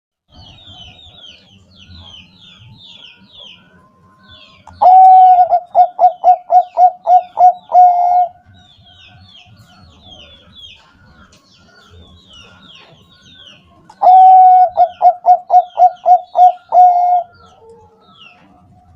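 Zebra dove (Bangkok perkutut) singing twice, about five seconds in and again at fourteen seconds: each phrase a held opening note followed by a quick run of about eight clipped coos. Faint high chirping of small birds goes on between the phrases.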